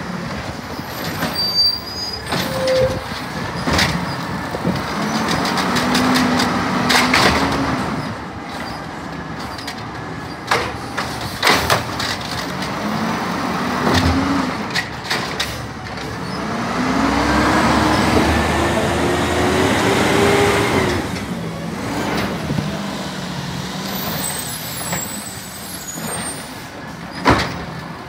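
Peterbilt 320 garbage truck with an Amrep HX-450 automated side-loader working the curb. The diesel engine revs up several times with a rising hydraulic whine as the arm cycles, and sharp bangs and clanks come from carts being gripped, dumped and set down.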